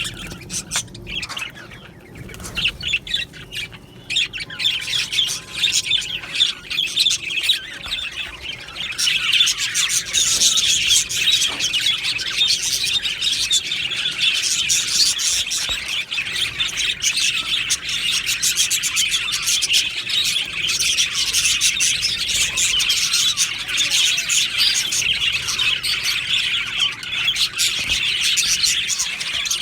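A colony of budgerigars chattering and chirping, scattered at first and thickening into a dense, continuous chatter about nine seconds in.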